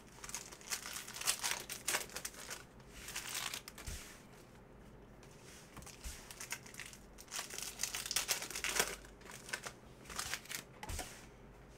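Crinkling and rustling of a foil trading-card pack wrapper and cards being handled, in two spells with a quieter gap between them, the second starting about seven seconds in.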